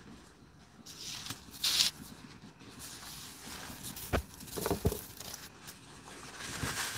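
Light handling noises: a short rustle about two seconds in, then a couple of sharp knocks around four to five seconds in.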